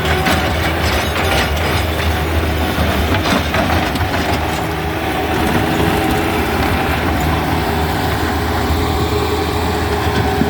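Heavy equipment engine running steadily under load while broken asphalt and concrete are loaded with its bucket, with clanks and rattles of debris, most of them in the first few seconds.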